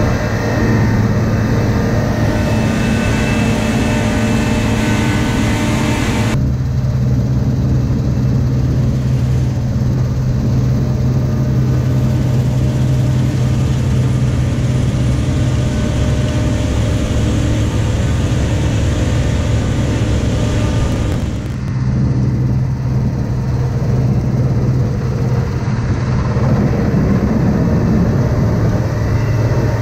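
Deutz-Fahr TopLiner 8 XL combine harvester running under load while cutting and threshing grain: a loud, steady engine-and-machinery drone with a strong low hum. Its tone shifts abruptly about six seconds in and again about twenty-one seconds in.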